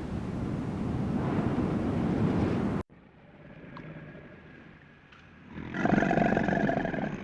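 A noisy rumble like wind on the microphone, cut off short. A little later comes one loud, pulsing animal bellow, lasting about a second and a half, near the end.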